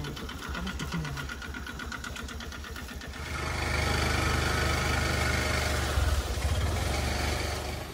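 Motor scooter's small engine idling with a fast, even ticking, then running louder and steadier from about three seconds in, easing off just before the end.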